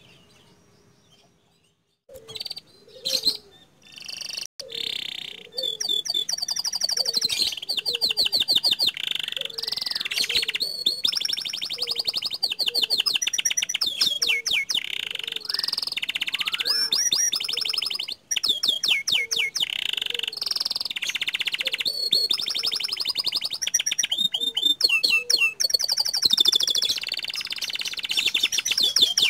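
Domestic canary of the pied 'Panda' type singing a long, continuous song of rapid rolling trills and held notes. It starts about two seconds in, after a brief quiet.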